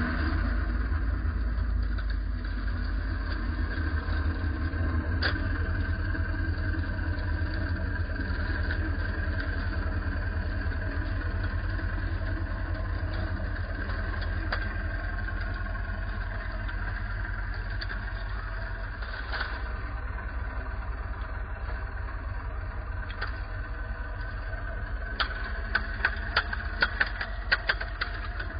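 Bergepanther tracked recovery vehicle running past with a steady low engine drone. Sharp track clanks come several times in the last few seconds as the running gear goes by.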